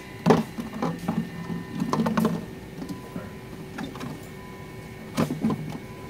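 Thin plastic water bottle crinkling and knocking as it is squeezed and handled, in short crackly bursts near the start, around two seconds in, and about five seconds in.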